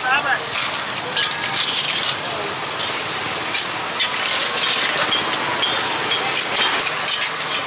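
Blood clams clattering in a metal ladle and a wicker basket as they are scooped from a pot of hot water, with water splashing and dripping, over steady background noise.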